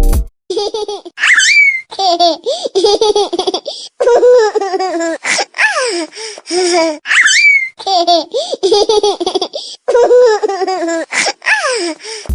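Laughter ringtone: high-pitched laughing in bursts, looping about every six seconds. Each loop opens with a short squeal that rises and falls.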